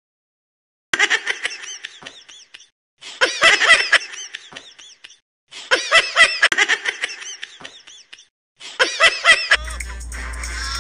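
Laughter in four bursts of one to two seconds each, separated by short silences. About nine and a half seconds in it gives way to a steady low hum with background noise.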